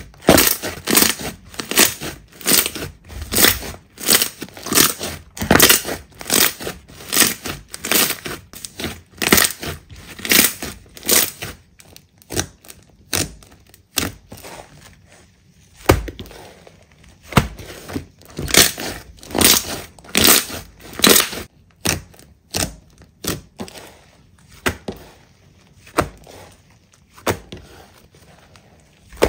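Slime being squeezed and pressed by hand, giving repeated crackling, popping squishes about two a second, with a couple of short pauses.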